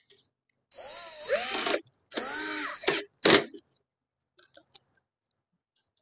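Cordless drill-driver running in two short spells of about a second each, its motor whine rising and dipping as it drives screws into the microwave's sheet-metal chassis, followed by a brief loud burst.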